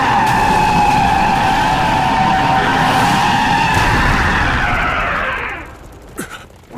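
Eren's Titan (the Attack Titan) roaring: one long, loud roar that fades out about five and a half seconds in.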